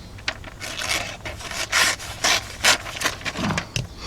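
Knife blade slicing through paper in several short strokes in quick succession, testing the edge's sharpness after stropping.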